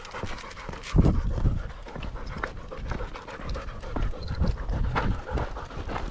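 Dog panting close to the microphone of a camera strapped to it, with a loud low bump about a second in.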